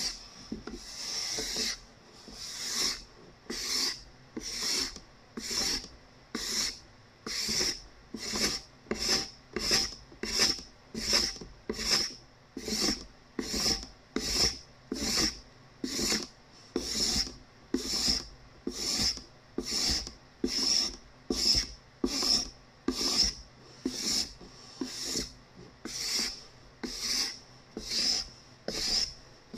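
Steel card scraper drawn over a cedar board in repeated short strokes, each a dry rasping scrape as it lifts fine shavings, coming at a bit more than one stroke a second in a steady rhythm.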